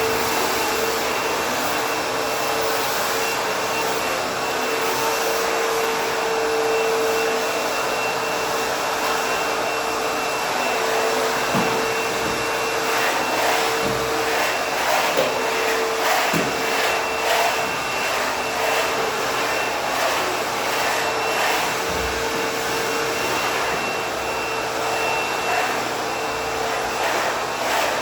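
ProTeam Super CoachVac backpack vacuum running steadily at full speed, a constant motor whine over the rush of suction. From about halfway through, short scattered clicks and knocks come through as it works the hardwood floor.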